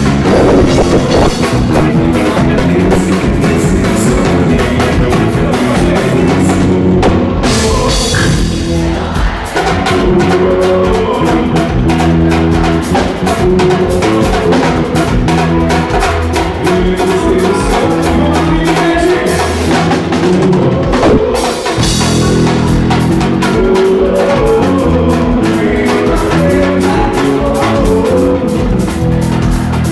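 A live band playing loud music, with a drum kit keeping a steady beat under the bass and other instruments.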